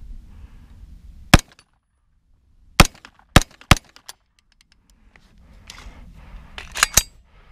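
KE Arms AR9 9mm pistol firing single shots: one shot, a pause, then three quick shots about half a second apart. Two lighter sharp clacks near the end.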